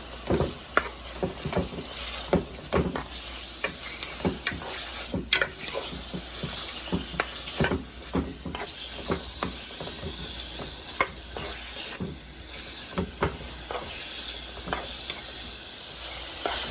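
Diced chicken pieces frying in hot oil in a pot on medium heat, sizzling steadily with frequent sharp pops and clicks.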